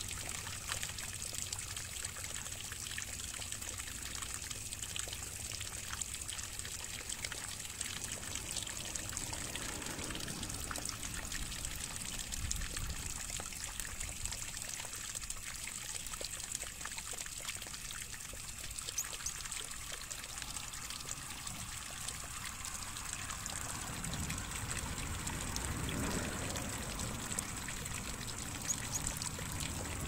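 Water trickling and pouring steadily, with a thin, steady high-pitched whine in the background.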